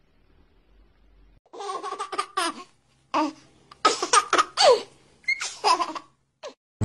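High-pitched, baby-like giggling laughter in several short bursts, starting about a second and a half in.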